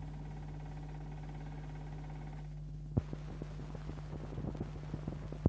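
Steady electrical hum with no voice. About three seconds in a sharp click sounds, followed by scattered small clicks and crackles, and another sharp click at the end.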